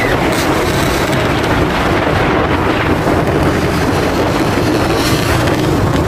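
Dirt bike engines running steadily while riding, with wind buffeting the microphone.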